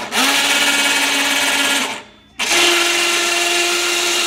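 Small electric winch on an ATV snow plow running in two loud bursts of about two seconds each with a short stop between them. It is winding steel cable through pulleys to angle the plow blade. The whine is pitched higher on the second run.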